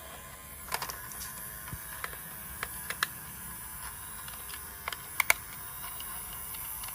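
Irregular sharp plastic clicks and taps from handling toy train parts, about ten in all, the loudest a quick pair a little past five seconds in, over a steady faint hiss.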